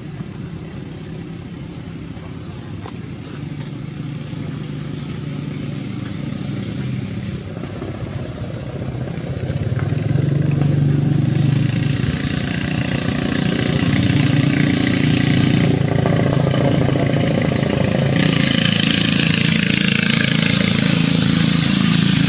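A motor engine running steadily, getting louder about ten seconds in, with a hiss building near the end.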